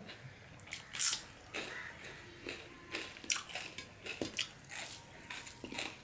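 Close-up wet eating sounds: lips smacking and chewing, with fingers squishing and mixing rice and curry on a steel plate. They come as a string of short, sharp smacks and clicks, the loudest about a second in.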